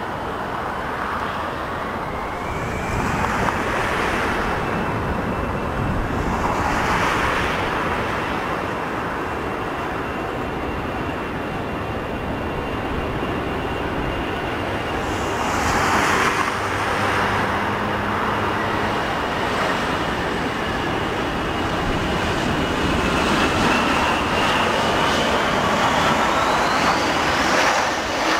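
Airbus A340-300's four CFM56 jet engines running at low thrust with a steady whine as it taxis onto the runway. About halfway through, a landing regional jet passes with a swell of roar. Near the end the whine rises as the A340's engines begin to spool up for the takeoff roll.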